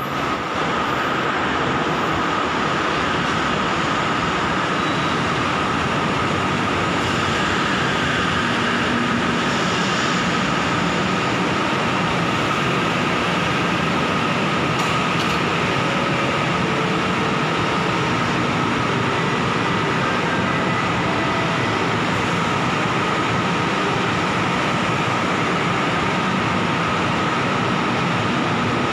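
Bombardier (Alstom) Innovia ART 200 linear-induction-motor light-metro train pulling into the platform and standing with its doors open: a steady, even rush of train and station noise with a constant high tone.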